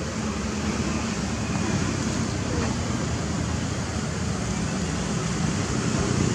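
Steady low rumbling outdoor background noise, with no distinct events.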